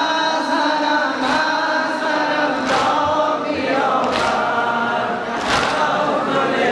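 A large crowd of mourners chanting a noha together, with a sharp collective chest-beat about every second and a half.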